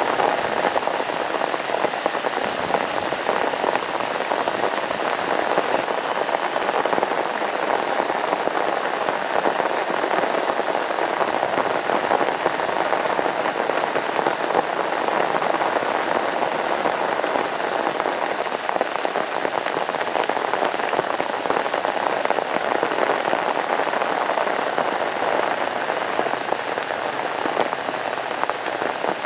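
Heavy rain falling steadily: a dense, even hiss of drops with no let-up.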